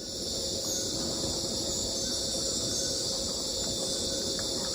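Rainforest insect chorus: a steady, unbroken high-pitched buzzing over a low background rumble.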